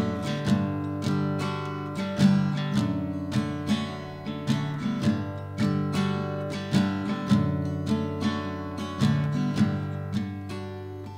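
Solo acoustic guitar playing a chord pattern, with about two strokes a second: the song's instrumental intro before the vocal comes in.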